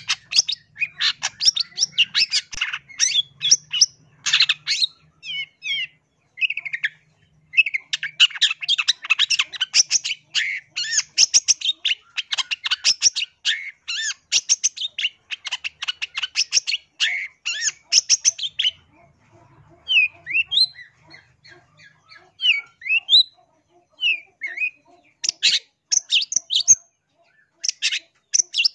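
Long-tailed shrike (cendet) song: fast, harsh chattering runs of rapid notes. In the middle of the stretch these give way for a few seconds to scattered single rising and falling notes, and the chattering returns near the end.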